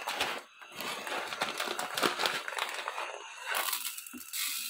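A clear plastic bag of green gram crinkling and rustling as it is handled and scooped from with a spoon, louder near the end.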